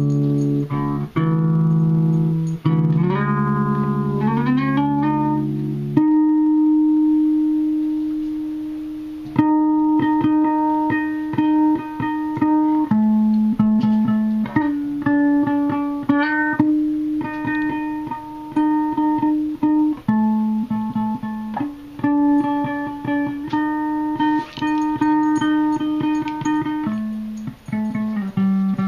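Electric guitar played through a Peavey amplifier. It opens with sliding notes, then holds one long note that fades away, then plays a repeated picked riff, with a note sliding down near the end.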